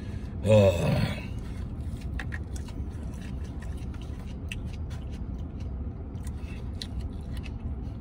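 A plastic fork clicks and scrapes against a takeout container of salad while a man chews, with many small sharp ticks scattered over a steady low rumble. A short murmur of voice comes about half a second in.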